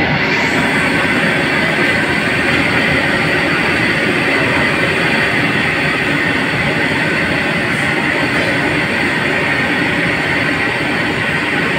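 Steady, loud rushing roar of kitchen equipment running without a break, the kind made by a high-flame gas burner and exhaust.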